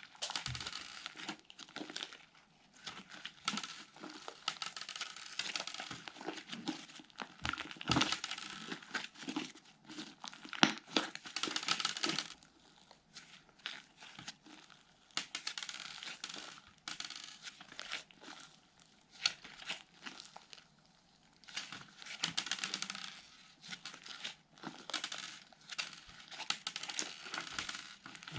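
Fluffy slime squished, stretched and poked by hand, giving irregular sticky crackles and clicky pops in bursts.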